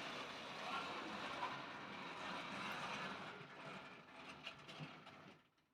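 Model trains running on the track layout, a steady whirring rattle. It fades over the last couple of seconds and stops, with a few clicks near the end.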